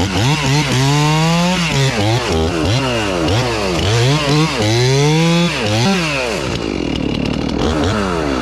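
Two-stroke chainsaw cutting into a log, its engine revved up and down over and over. About six and a half seconds in it drops back to a lower, steadier run.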